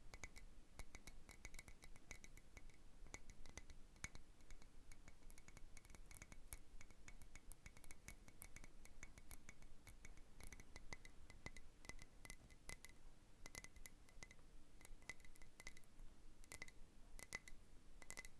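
Fingernails tapping softly and quickly on a glass Christmas bauble, many light clicks, most leaving a brief high ring of the glass.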